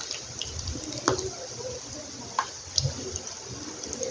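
Cheese balls deep-frying in a pan of hot oil: steady sizzling and bubbling with scattered sharp pops, a few louder ones about a second in and around two and a half seconds in.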